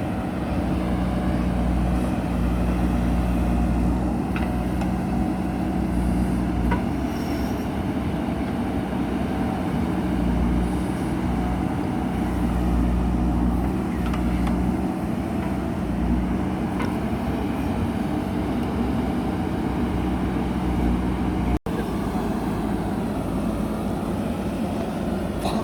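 JCB backhoe loader's diesel engine running steadily under load, its low rumble swelling and easing at intervals, with a few faint clicks.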